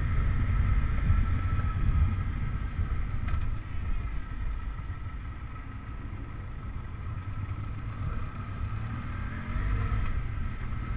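Benelli TRK502X's parallel-twin engine running at low road speed under a heavy wind rumble on the microphone. It goes quieter through the middle as the bike slows, then picks up again near the end.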